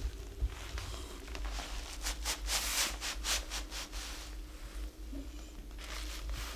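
Large calligraphy brush loaded with ink, scrubbed and dragged across paper: a series of quick scratchy swishes of the bristles. They are densest and loudest from about two to four and a half seconds in, with one more stroke near the end.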